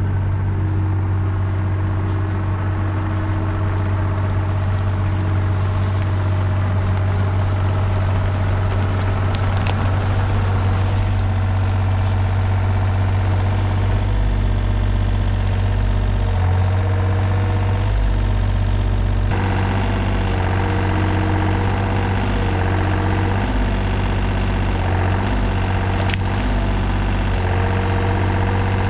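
Takeuchi TB235-2 mini excavator's diesel engine running steadily as the machine works, its note dipping briefly a few times around the middle.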